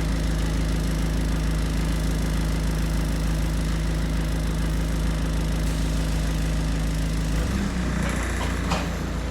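A bus engine running steadily, heard from inside the passenger cabin, with its note changing about seven and a half seconds in. Two brief clicks come near the end.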